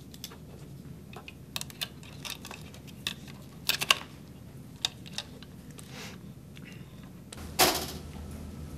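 Pens and paper being handled while forms are signed: scattered short clicks and scratches, with a louder rustle of paper near the end.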